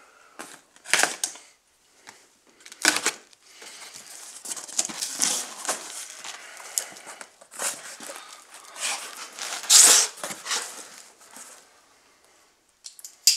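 Packing tape ripped off a cardboard box and the flaps pulled open: a string of sharp rips, with scraping and rustling cardboard between them, the loudest rip about ten seconds in.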